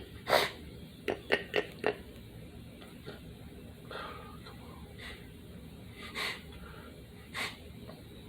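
A person's nose: one short, forceful nasal burst just after the start, then four quick, sharp sniffs about a second in. After that come a few softer sniffs and breaths, spaced about a second apart, from a congested, runny nose.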